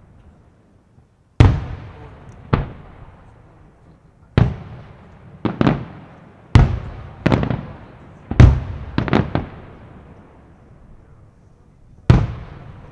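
Aerial firework shells bursting: about a dozen sharp bangs at irregular intervals, some in quick pairs, each trailing off in a long echo. After a quiet first second and a half, the bangs come thick through the middle, the loudest about halfway through, then a lull of a couple of seconds before one last bang near the end.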